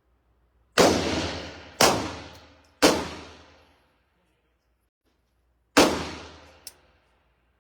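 Four handgun shots, three about a second apart, then a pause and a fourth. Each shot leaves an echoing tail of about a second. A small sharp click follows the last shot.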